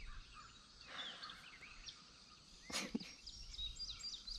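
Faint dawn birdsong: many small birds chirping and singing at once. A single brief knock a little under three seconds in is the loudest sound.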